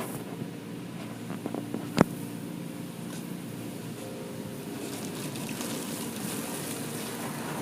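Automatic car wash heard from inside the car: a steady low hum, a sharp click about two seconds in, and a rushing hiss that grows louder from about five seconds.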